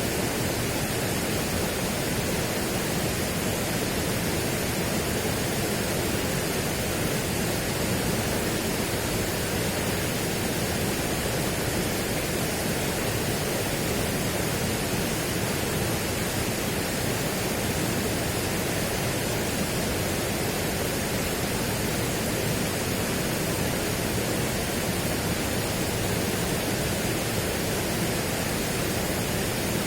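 Steady, unchanging rushing noise spread evenly from low to high pitch, with no separate events.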